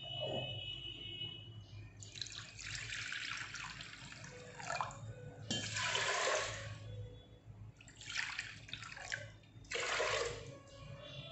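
Washed lentils and water poured from a glass bowl into a pressure cooker, splashing in about four separate pours.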